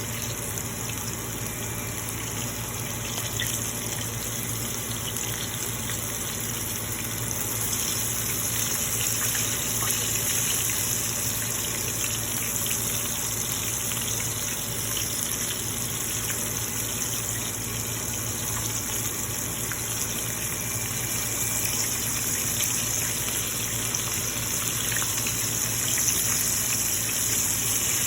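Floured chicken pieces deep-frying in hot oil in a pan: a steady sizzle with many small crackles.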